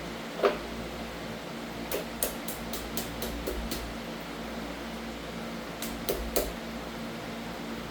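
Sharp metallic clicks and taps from hand tools on the engine block during a teardown of the last connecting rod and piston: one tap early, a quick run of about ten light clicks midway, and a few more near the end, over a steady hum.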